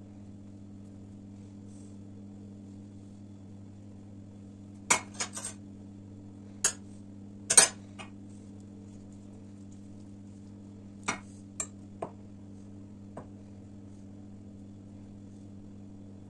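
A utensil clinking and tapping against a stainless steel pan of melted margarine and oil while a pastry brush is dipped and worked in it: one quick cluster of clinks, then a few scattered taps later, over a steady low hum.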